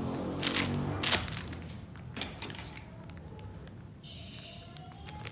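A few short rustles from packaging being handled, the strongest about half a second and a second in, then quieter handling.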